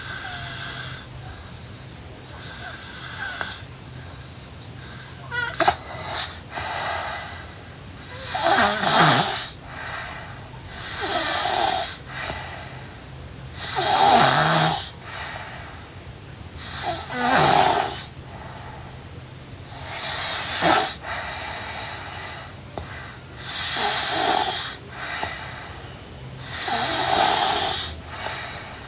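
A sleeping girl snoring, with a loud, raspy breath about every three seconds.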